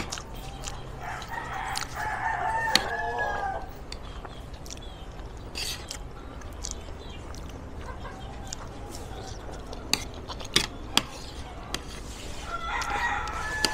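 A rooster crowing twice: a long crow about a second in, and another near the end. Metal spoon and fork click against a ceramic plate now and then.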